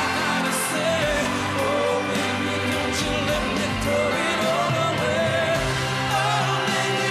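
Male pop vocal group singing a pop song with band accompaniment.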